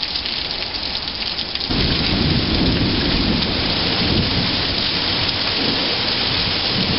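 Heavy downpour hissing steadily. About two seconds in, a deep rumble of thunder comes in and rolls on under the rain.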